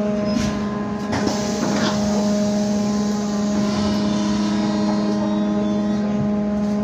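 Ride inside a MAZ-203T70 trolleybus in motion: a steady electrical hum from its onboard equipment runs over road noise, with a few knocks and rattles from bumps between one and two seconds in.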